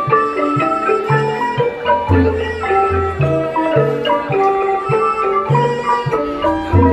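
Cambodian traditional dance music: a bright mallet-percussion melody of quick pitched notes over low drum strokes about once a second.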